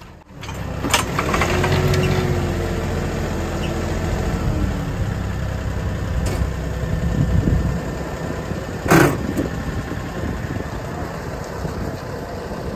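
Kioti NX5510 compact tractor's diesel engine running steadily while driving a three-point post-hole auger boring into the ground. A sharp knock comes about a second in, and a louder one about nine seconds in.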